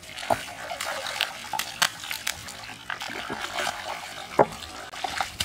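A hooked fish thrashing at the surface of a pond, throwing up water in short, irregular splashes. The sharpest splash comes a little over four seconds in.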